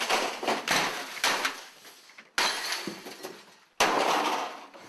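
Office desk equipment being beaten with a long object: a series of sudden loud crashes, about one a second, each trailing off in clatter and rattling.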